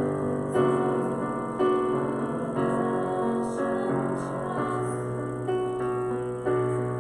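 Piano playing slow, sustained chords, a new chord struck about once a second.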